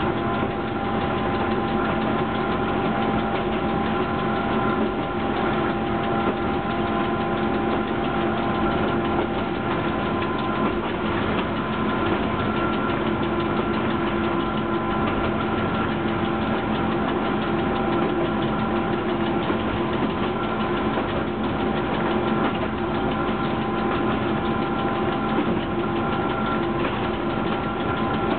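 Running noise inside the cab of BDZ class 45 electric locomotive 45 149 on the move: a steady hum carrying several steady whining tones over an even rushing noise.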